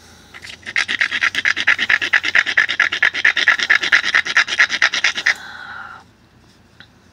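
A hammerstone is rubbed rapidly back and forth along the edge of a stone flake, stone-grinding a continuous platform to strengthen the edge for flaking. It makes a fast gritty scraping of about six strokes a second for about five seconds, then stops.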